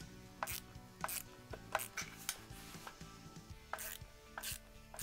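Hand screwdriver with a Phillips bit backing wood screws out from under a rifle's rubber butt pad: a series of short, quiet clicks with each turn, about one every half second, pausing briefly midway.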